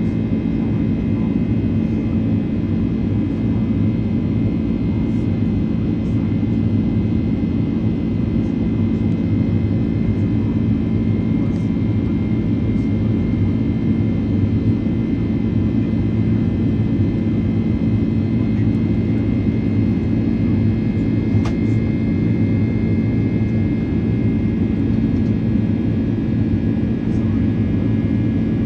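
Steady jet engine and airflow noise heard inside the cabin of a Boeing 767-400: a constant low rumble with a few steady whining tones above it.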